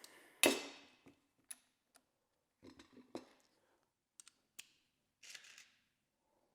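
Small hardware and tools being handled during a floorboard install: a sharp knock about half a second in, then scattered light clicks and taps of screws and bolts, and a short rustle near the end.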